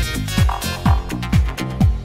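Electronic dance music track with a steady four-on-the-floor kick drum about twice a second, each kick dropping in pitch, with crisp hi-hat ticks and synth layers between the beats.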